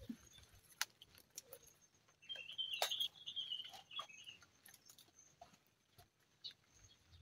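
Faint, scattered snaps and rustles of sukuma wiki (collard green) leaves being picked by hand. A brief high twittering sound lasts about two seconds, starting about two seconds in.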